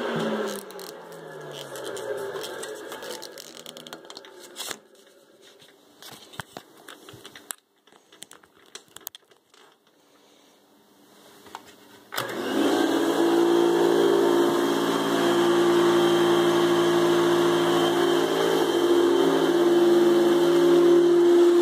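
Hoover Celebrity canister vacuum's motor, freshly tuned up with a new bearing, winding down with a falling pitch just after being switched off. A few scattered clicks and knocks follow. About twelve seconds in it is switched on again and runs with a loud, steady hum.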